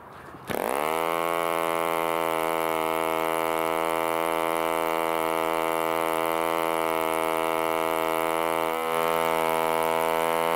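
1947 HP Series I 3.5 cc spark-ignition model aero engine flicked over by hand, catching about half a second in, quickly rising in pitch and settling into a steady run. Near the end it falters for a moment, then runs on slightly louder.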